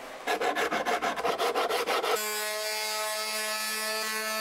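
Quick back-and-forth rubbing strokes on an end-grain wooden cutting board, about seven a second. A little over two seconds in this gives way abruptly to a Ryobi electric sander running steadily on the board, a constant pitched whine.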